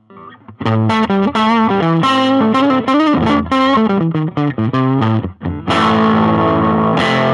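Fender '52 reissue Telecaster on its neck pickup, played through a Marshall Origin 5 all-tube 5-watt amp with the boost engaged, giving a driven tone. A run of single-note lines, a short break about five seconds in, then ringing chords.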